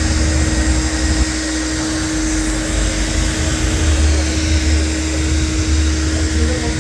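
Charnock C-260 wet and dry vacuum cleaner running steadily, a constant motor hum over a rushing noise.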